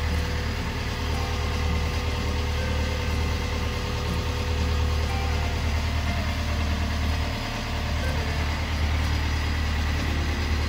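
Boat's inboard engine idling steadily, a low drone that dips briefly about seven and a half seconds in.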